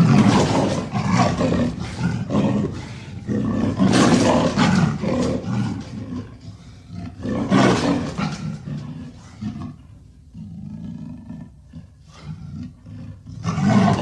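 Amur leopard roaring in a series of calls, loudest in the first few seconds and again about four and eight seconds in, with softer calls after that and another loud one near the end.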